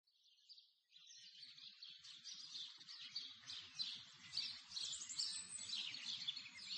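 Many small birds chirping and twittering together, fading in after about a second and growing louder.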